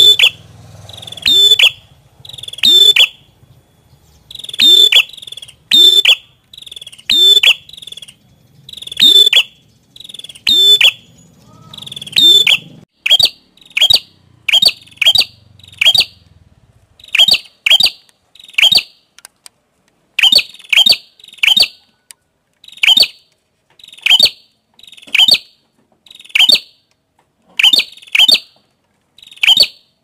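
Prenjak kepala merah (ashy tailorbird) calling: sharp, high notes, each sliding quickly downward, repeated about once a second and often in pairs. A faint low hum lies under the first half and fades out.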